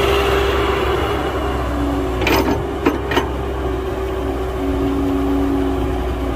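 Heavy diesel construction machinery running steadily with a steady whine, and three sharp knocks about halfway through.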